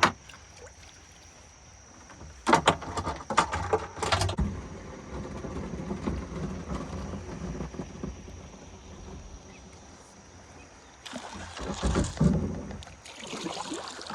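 Kayak and paddle handling on a river: a knock, then a cluster of knocks and clatter against the hull a few seconds in, followed by paddle strokes and water splashing, with another burst of splashing near the end.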